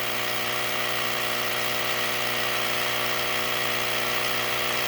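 Portable battery-powered tire inflator running steadily, its small compressor humming without a break as it pumps up a flat four-wheeler tire.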